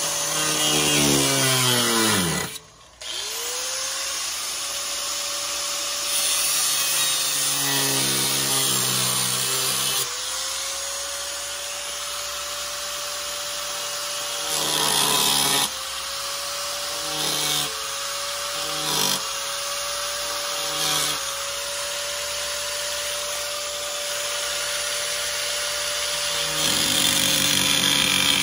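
Angle grinder with a cutoff disc cutting through the sheet-metal wheel arch of a van, its motor whining steadily over the hiss of the cut. About two and a half seconds in, the motor winds down and stops, then spins back up. Later its pitch dips several times as the disc bites into the steel.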